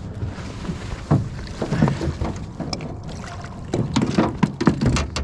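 Knocks and thumps on a small fishing boat while a big catfish is landed, over a low rumble of wind on the microphone; the knocks come thicker and louder near the end.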